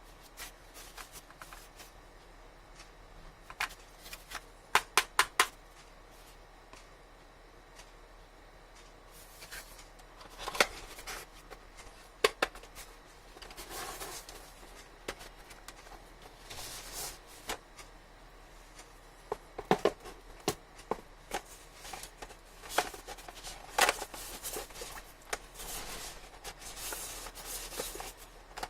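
Hands handling a phone's retail box and packaging: sharp clicks and taps, including a quick run of four about five seconds in, then on-and-off rustling with scattered taps.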